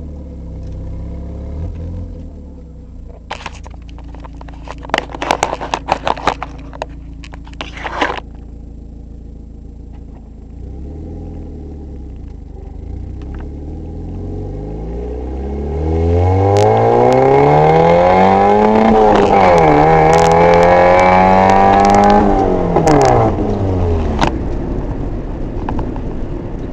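Mazda MX-5 Miata four-cylinder engine with an exhaust leak at the catalytic converter, which has no gasket. It idles, is revved up from about halfway through and held high for several seconds, then drops back to idle near the end.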